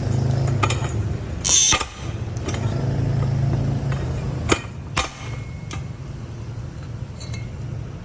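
Pipe notching machine running with a steady low hum, a little louder for the first four and a half seconds, while metal knocks and clinks from the steel tube and machine parts come several times, the loudest a brief clatter about a second and a half in.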